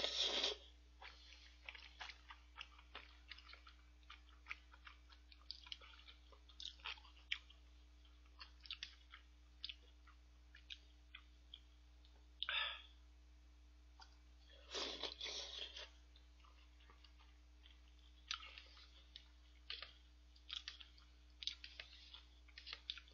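Close-up chewing of udon noodles and vegetable tempura: many small crunches and wet mouth clicks. There are a few louder, longer bursts of noise near the start and about halfway through.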